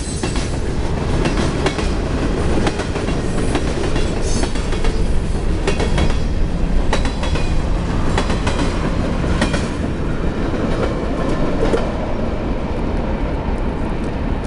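Freight train of tank cars and flatcars rolling past at close range: a steady rumble of steel wheels with irregular clacks over the rail joints. The noise eases a little over the last couple of seconds as the end of the train goes by.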